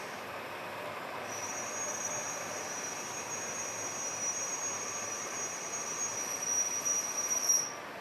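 Lathe cutting metal: a steady high-pitched squeal comes in about a second in over the machine's steady running noise and cuts off suddenly near the end.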